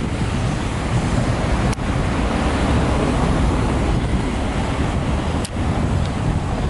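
Wind buffeting the microphone over the steady noise of street traffic. The sound drops out for an instant twice.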